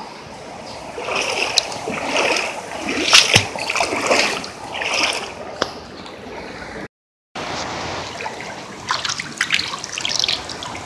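Water splashing and sloshing in irregular bursts, as of a person wading knee-deep through floodwater. The sound drops out completely for a moment about seven seconds in.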